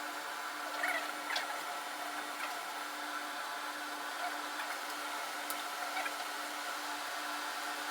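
Steady mechanical hum of room equipment, with a few faint clicks and rustles about a second in and again later.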